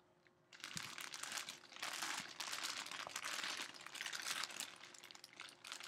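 Clear plastic wrapping around a football jersey crinkling as the jersey is handled and turned over, starting about half a second in.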